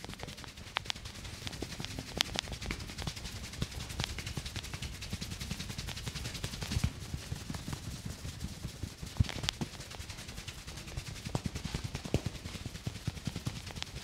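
Head massage: fingers rubbing and scrubbing rapidly through hair on the scalp, a dense, irregular crackle of hair friction with soft thumps underneath and a few sharper snaps, one about nine seconds in.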